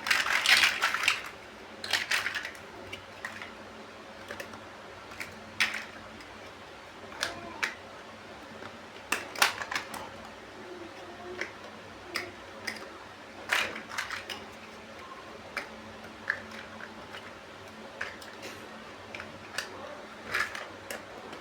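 Plastic building bricks being handled and pressed together: scattered sharp clicks and light rattles, with a denser clatter of pieces in the first second. A faint steady low hum lies underneath.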